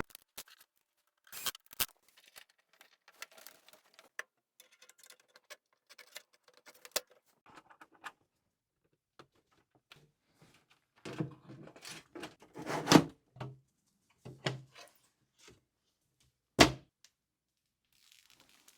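Scattered small clicks, taps and knocks of hard parts being handled and set down, with a cluster of louder thunks past the middle and one sharp thunk near the end.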